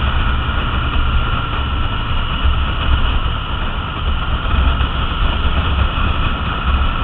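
Triumph Bonneville T100 parallel-twin motorcycle riding at a steady cruising speed: engine and road noise under wind buffeting the microphone, with no change in pace.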